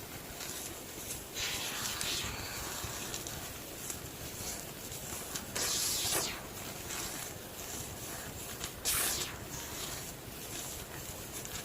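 Homemade gym chalk block being crushed, a few dry crunching and crumbling bursts with quieter rustling between them; the loudest crunch comes about six seconds in, and a short sharp one about nine seconds in.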